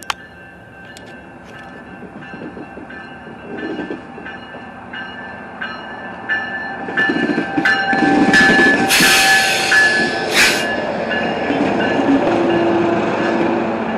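Grade-crossing bell dinging at an even pace as an MP36 diesel locomotive approaches and passes close by. The locomotive's noise builds from about seven seconds in to a loud blast around nine to ten seconds in that is probably its horn, then the diesel engine and wheels roll past with a steady hum.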